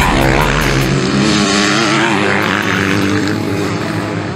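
Motocross bike engines revving on a dirt track, their pitch rising and falling with the throttle in the first second, then running more evenly as the bikes ride past.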